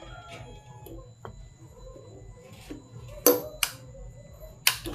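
Three sharp clicks or knocks, two close together about three seconds in and one near the end, over a low steady hum.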